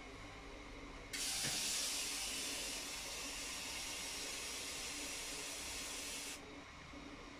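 A steady hiss starts suddenly about a second in and cuts off about five seconds later, over a faint steady low hum.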